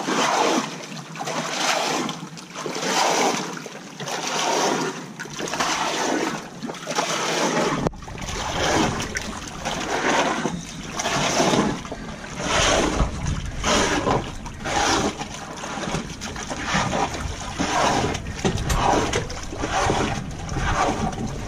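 Water splashing and sloshing between the hull and the dock in surges about once a second, stirred by a diver working just below the surface. From about eight seconds in, a low wind rumble on the microphone joins it.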